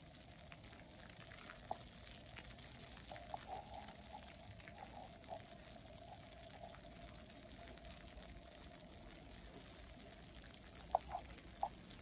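Water trickling steadily with a bubbling sound, and a few sharp taps or drips, the loudest near the end.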